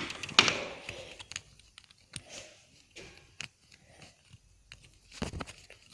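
Scattered light clicks and taps of small parts and tools being handled, with a short rustling scrape at the start and a quick cluster of clicks near the end.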